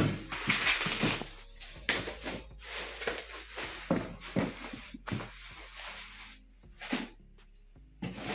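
Plastic packaging netting rustling and crinkling as it is pulled off a cardboard box, with irregular knocks of handling against the box.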